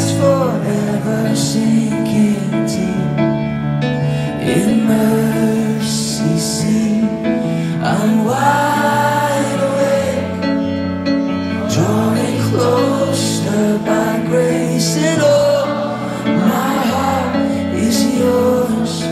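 Live contemporary worship band music: a singer at a keyboard sings slow, held lines over sustained keyboard chords.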